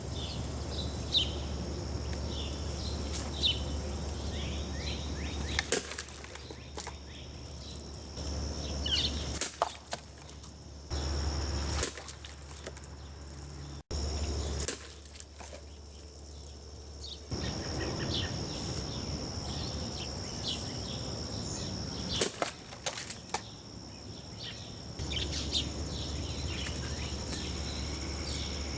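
Cold Steel Voyager XL Kris wavy-edged folding knife chopping through bottles in static cuts: a series of sharp whacks spread through several clips. Birds chirp in the background over a steady low hum.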